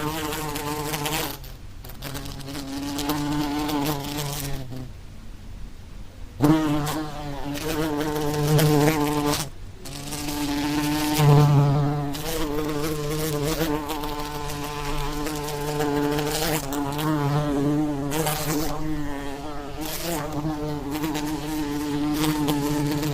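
Flies buzzing in flight: a steady buzz that wavers in pitch, breaking off a few times, the longest gap lasting about a second and a half around five seconds in.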